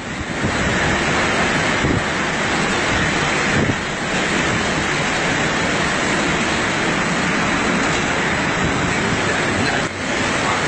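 Hurricane-force wind blowing steadily and loudly across the microphone, a continuous rushing noise with brief dips about two, four and ten seconds in.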